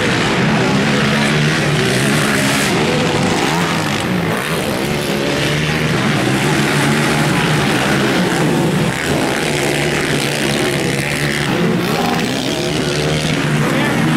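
Racing quad (ATV) engines revving hard, several at once, their pitch rising and falling as the riders accelerate, shift and back off.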